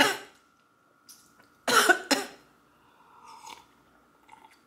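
A woman coughing: one cough at the very start, then two more in quick succession about two seconds in. Faint sipping and swallowing from a glass follow near the end.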